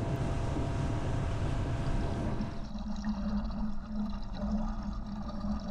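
Wind and water rushing past a boat underway, an even noise. About halfway through it changes abruptly to muffled underwater sound inside a bait livewell: water circulating, with a steady low hum.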